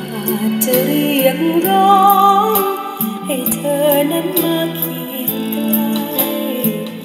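A song with a singing voice and a regular percussion beat, played from an MP3 CD on a Philips MCB240 micro hi-fi through its 3-inch full-range speakers.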